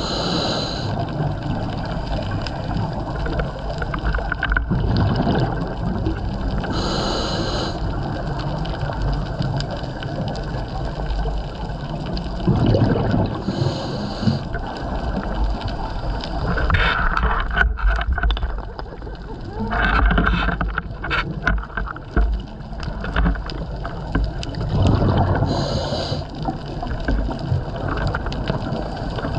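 Scuba diver breathing through a regulator underwater: a short hiss on each inhale, repeating every six or seven seconds, and gurgling bursts of exhaled bubbles, over a steady low underwater rumble.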